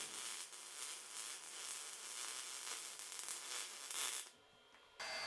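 Faint crackling hiss of a MIG welding arc running on steel. It breaks off for under a second about four seconds in, then resumes.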